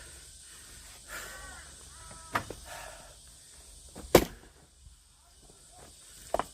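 Axe blows splitting firewood: three sharp strikes about two seconds apart, the loudest about four seconds in.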